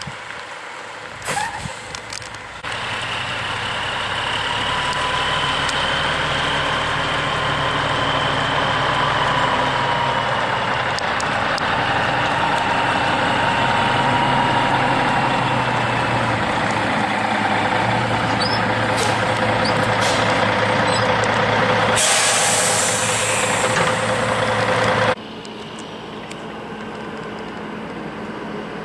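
Heavy truck hauling a lowboy trailer, its engine running under load with its pitch slowly rising and falling. Near the end comes a loud hiss of about three seconds that cuts off abruptly, after which everything is much quieter.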